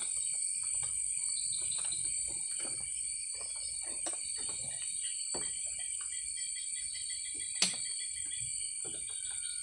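Steady night chorus of crickets and other insects in the forest, with scattered soft knocks and clatter throughout and one sharp click about three quarters of the way through.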